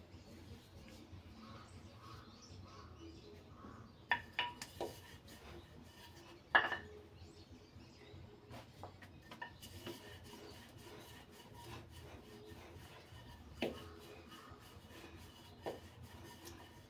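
Wooden rolling pin rolling out thin samosa dough on a floured granite countertop: a soft, low rubbing, broken by a few sharp knocks.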